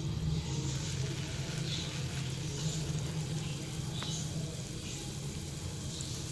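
Dal batter patties frying in hot cooking oil in a pan: a soft, steady sizzle with scattered faint crackles, over a low steady hum. A single sharp click about four seconds in.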